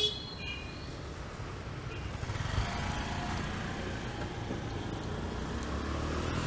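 A sharp click at the start, then a low rumble of street traffic building up over the next few seconds.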